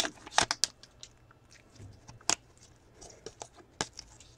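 A foil trading-card pack wrapper and cards handled by gloved hands: scattered soft crinkles and taps, with a few sharper clicks, the clearest about two and a half and four seconds in.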